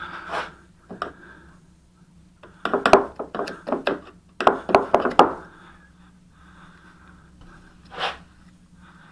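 Angled sash paintbrush being dipped into a small can of paint and tapped against the can, making two quick runs of clicks and knocks. Near the end a short brush stroke on the wooden window sash. A faint steady hum runs underneath.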